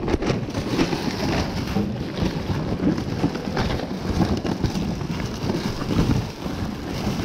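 Close crinkling and rustling of a woven plastic tote bag and plastic-wrapped items being handled, an irregular crackle.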